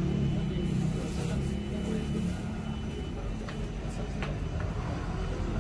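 A man's low voice reciting a du'a (Islamic supplication) in Arabic, fading after about two seconds, over a steady low rumble.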